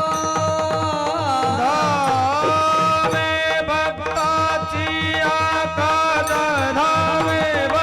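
Kirtan music: mridang playing a steady rhythm under sustained melody notes, with a sung line gliding between pitches about a second in.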